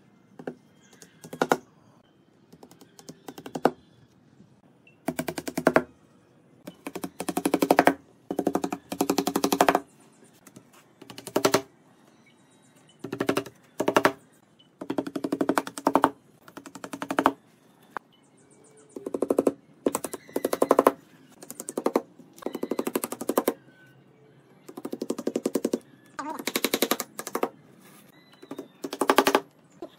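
Wooden mallet rapidly tapping thin wooden slips into saw kerfs across the corner joints of a wooden frame, in quick runs of light knocks lasting from half a second to about two seconds, with short pauses between runs.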